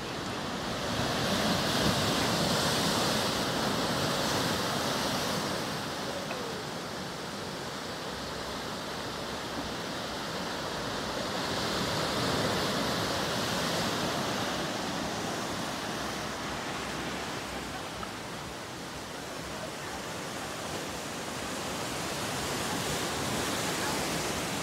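Sea waves breaking and washing on the shore, a steady hiss that swells three times, about ten seconds apart.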